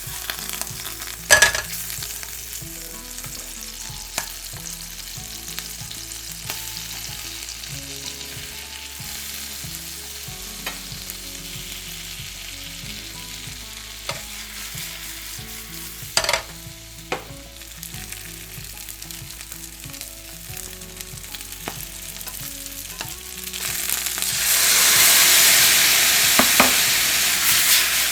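Food frying and sizzling in a pan while being stirred, with a couple of sharp utensil knocks against the pan; the sizzle grows much louder near the end.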